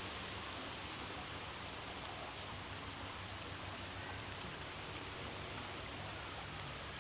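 Steady rushing of flowing water, an even hiss, with a few faint bird chirps.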